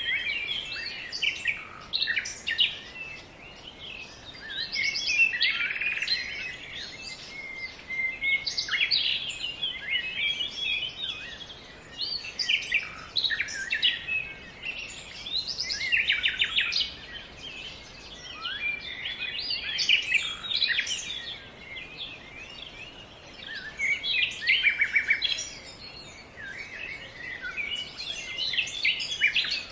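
A chorus of small birds chirping and singing together: overlapping twitters, quick trills and short rising and falling calls, with no break.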